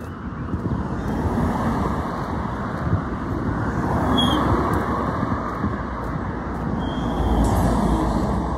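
Cars passing along a road, their tyre and engine noise swelling twice: about four seconds in and again near the end.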